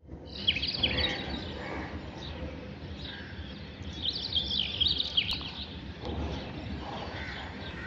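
Birds chirping in quick clusters of high twittering calls, loudest about half a second in and again around four to five seconds, with scattered single calls, over steady outdoor background noise at dawn.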